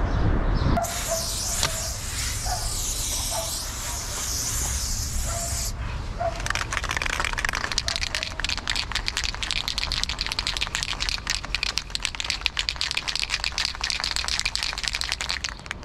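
Aerosol spray-paint can hissing for about five seconds as paint goes onto a wall, cutting off abruptly. Then the can is shaken hard, its mixing ball rattling in rapid clicks for the rest of the time.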